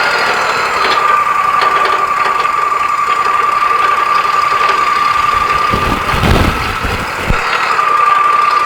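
Wood-Mizer LT40 hydraulic sawmill running: its engine with a steady high whine that dips in pitch briefly near the end. A short low rumble comes about six seconds in.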